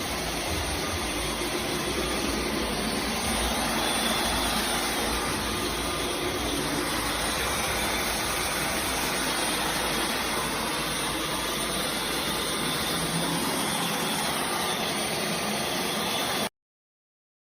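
Dyson V12 Detect Slim cordless stick vacuum cleaner running steadily with a continuous rushing whir, stopping suddenly near the end.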